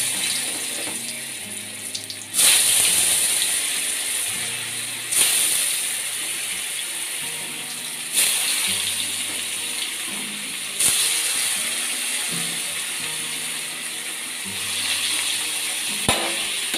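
Paneer cubes sizzling in hot oil in a kadai, with a sudden surge of sizzle each time more cubes are dropped in, about every three seconds, fading between drops. Soft background music underneath.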